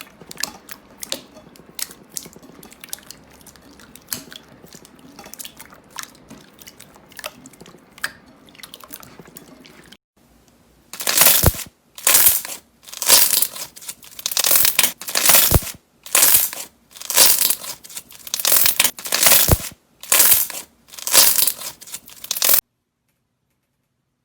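Slime being worked by hand: first a run of small sticky clicks and pops, then about ten loud crunching squeezes in a steady rhythm, about one a second, before it cuts off suddenly near the end.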